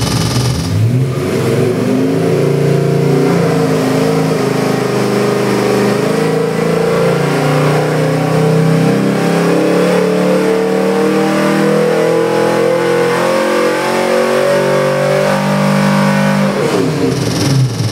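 383 small-block Chevy stroker V8 with a hydraulic roller cam, run loaded on an engine dyno during an rpm sweep. About a second in the note changes, then climbs steadily as the engine pulls from about 3,700 to nearly 6,000 rpm. Near the end the pitch drops away sharply.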